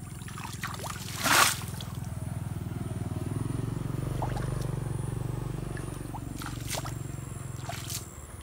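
Muddy puddle water splashing and sloshing as a barefoot child wades and stirs it, with one loud splash about a second in and two smaller splashes near the end. A steady low drone runs underneath.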